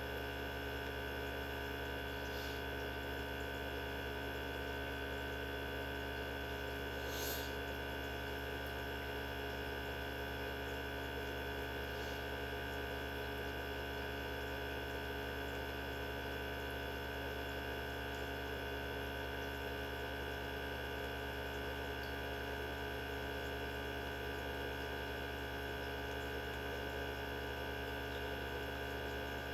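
Mini benchtop centrifuge running steadily at speed, its small motor giving a constant hum with several steady tones as it spins tubes of cow blood to separate the components. A brief faint tick about seven seconds in.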